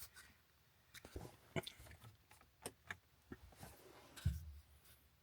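Faint handling noise from a handheld camera being repositioned: scattered small clicks and crackles, with a louder low thump about four seconds in.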